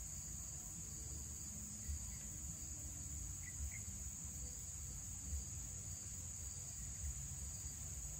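Steady high-pitched drone of insects, with a fainter insect chirp pulsing underneath, over a low rumble.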